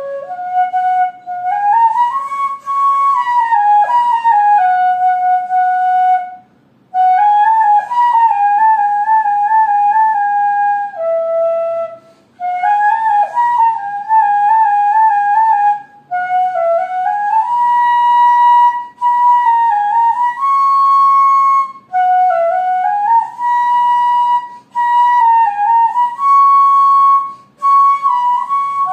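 Background music: a solo flute playing a melody in phrases of a few seconds with short pauses between them, some notes wavering in quick trills.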